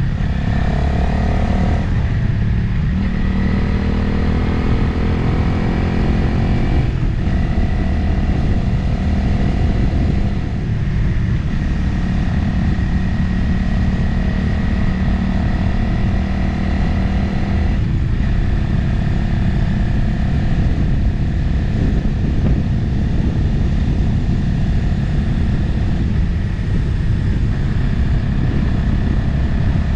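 Motorcycle engine running under way, heard from the rider's position with wind noise over the microphone; the engine note changes pitch briefly a few times, as at gear changes.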